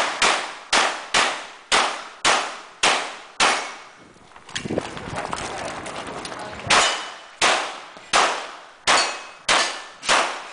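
Pistol shots from a Glock fired rapidly, about two a second, in two strings separated by a pause of about three seconds. Each shot is a sharp crack with a short ringing echo.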